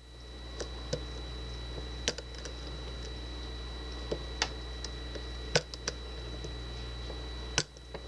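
Lock pick and tension wrench working in a Master Lock deadbolt's keyway: about ten sharp, irregular clicks as the pins are probed and set, over a steady low hum.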